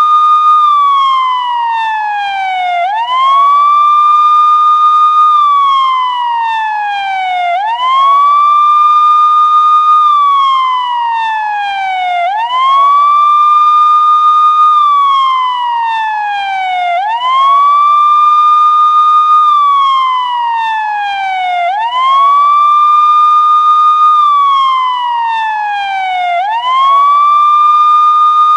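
Police siren sounding a slow wail: each cycle sweeps quickly up in pitch, holds briefly at the top, then falls steadily for about two seconds, repeating roughly every four and a half seconds.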